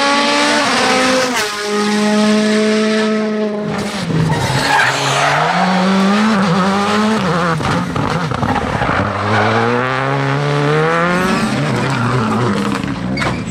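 Turbocharged rally cars at full throttle on a tarmac stage, one after another: a Hyundai i20 WRC, then a Škoda Fabia R5, then a Subaru Impreza WRC. Each engine note climbs through the gears and drops sharply on each shift or lift.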